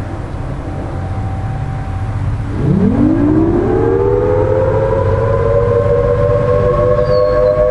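Federal Signal Thunderbolt 1000T tornado siren winding up. After a low rumble, its two tones sound together from about two and a half seconds in, rising quickly in pitch and then levelling off into a steady wail.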